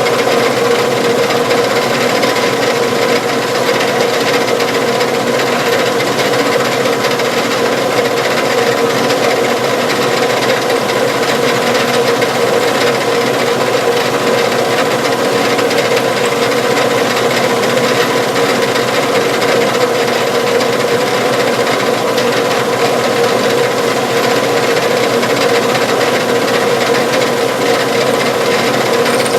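Machine drilling: a drill bit boring the hole through a small metal hinge piece, running steadily and a little loud, with a constant hum under a gritty cutting hiss.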